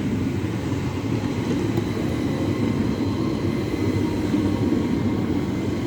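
Southeastern Class 395 high-speed electric multiple unit moving through the station: a steady rumble with a faint high whine above it.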